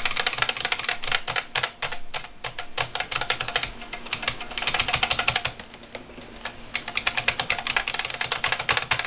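Computer keyboard keys struck rapidly and hard, a dense run of clicks with a short lull a little past halfway. The G and H keys are being hammered over and over because they are not registering.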